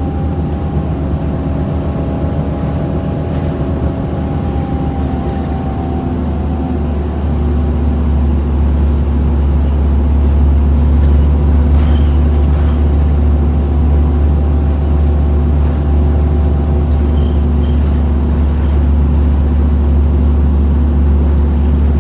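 Orion VII city bus under way, heard from inside the cabin: a steady low engine drone with a faint whine above it, getting somewhat louder about seven seconds in.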